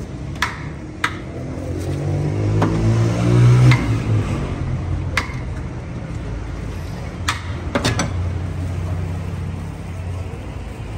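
Steel ladle clinking and knocking against a large steel cooking pot and steel bowls as paya broth is served, several sharp strikes spread through. A motor vehicle engine swells underneath, loudest about three to four seconds in.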